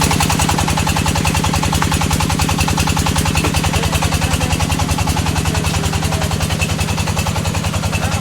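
Brick-making machine running: a steady mechanical hum with a fast, even pounding rhythm of roughly ten beats a second.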